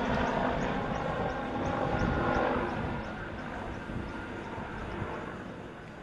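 Firefighting helicopter running, a steady rush that slowly fades. Faint high chirps repeat about three times a second.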